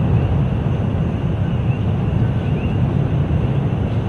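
Kilauea fissure lava fountain erupting, a loud, steady, deep roar like a jet engine without any beat, with faint short chirps above it.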